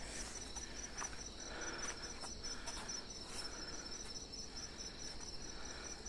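Crickets chirping: a faint, steady high-pitched trill of quick, evenly spaced pulses.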